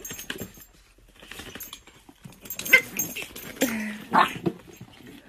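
Dogs, a pug among them, making short irregular vocal noises while play-fighting. The sounds are a few brief calls, loudest and busiest in the second half, with one short low held sound among them.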